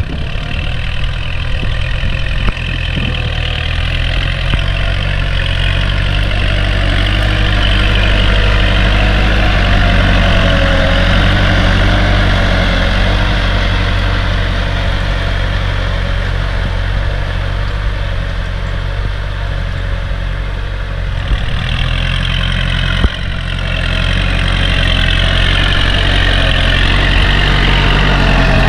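Kubota L5018 tractor's diesel engine running steadily under load as it pulls a disc plough through the soil, getting louder in the last few seconds as it comes close.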